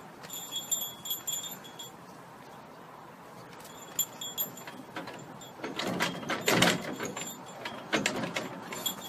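Light metallic jingling, like small metal tags or a bell, a few times in the first two seconds and briefly again later, with a louder scuffling stretch about two-thirds of the way through.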